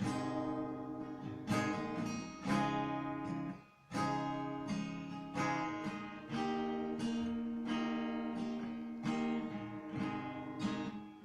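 Acoustic guitar playing an instrumental song intro, chords struck every second or so, with a brief break about three and a half seconds in.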